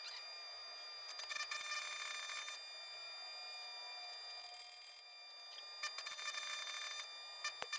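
Welding machine humming steadily with its cooling fan running, with several short bursts of crackling from stick welding with 7018 rod.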